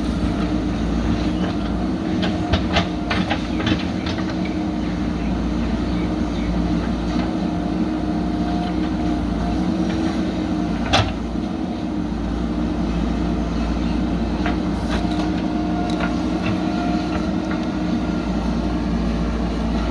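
JCB backhoe loader's diesel engine running steadily under work, with a few sharp knocks early on and one louder knock about eleven seconds in.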